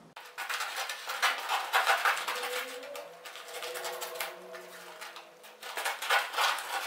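Aluminium foil of an underfloor heating mat crinkling and crackling as it is handled and cut with scissors, in two louder spells, about a second in and near the end.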